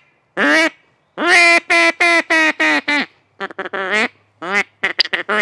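Duck call blown in a run of quacks: a single quack, then a string of about six, then shorter, quicker quacks near the end.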